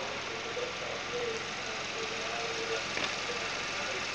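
2011 Suzuki Kizashi's 2.4-litre four-cylinder petrol engine idling steadily, with a light click about three seconds in.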